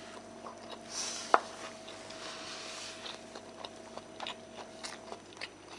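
Quiet eating at a table: chewing and small utensil clicks, with one sharp click of a utensil against a dish about a second and a half in. A steady faint hum runs underneath and stops near the end.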